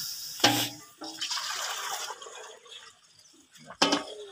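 Water poured and splashing between steel vessels, with a few short sharp knocks in between.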